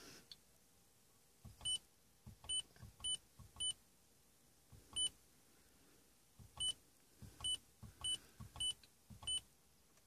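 2013 Mazdaspeed3 audio head unit giving a short electronic beep each time its audio control knob is pressed to step through the settings menu, about ten beeps at uneven intervals, each with a soft click of the knob.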